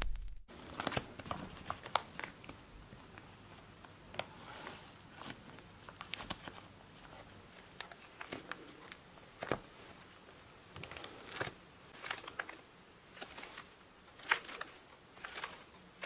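Quiet, irregular crinkling and clicking of a zippered CD wallet's plastic sleeves as its pages are turned and handled.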